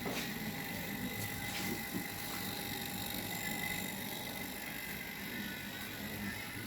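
A small motor running steadily with a constant hum, and a few light clicks in the first couple of seconds.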